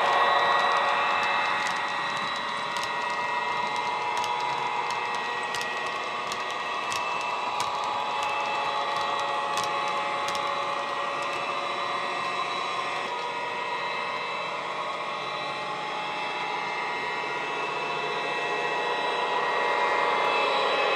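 Sound-fitted model Class 68 diesel locomotive: the ESU LokSound decoder plays the recorded diesel engine running steadily under power through a passive radiator speaker. There are light scattered clicks from the wagons running over the track, and the engine sound grows a little louder near the end.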